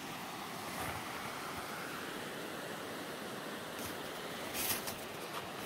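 Steady rushing of a fast-flowing mountain creek, running open and unfrozen between snowy banks. A short, soft crunch of snow comes near the end.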